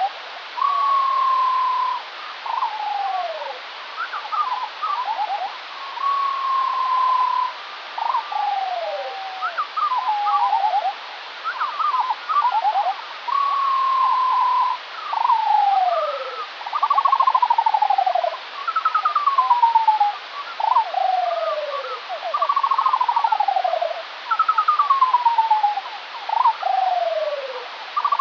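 Skylark song slowed to a quarter of normal speed, which drops it about two octaves. It becomes an unbroken stream of falling slurred whistles, steady held notes and fast trilled downward sweeps over a constant hiss.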